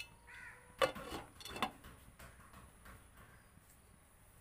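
A glass pot lid set onto a cooking pan, giving two light clinks, the first about a second in and a second just after. A faint bird call is heard near the start.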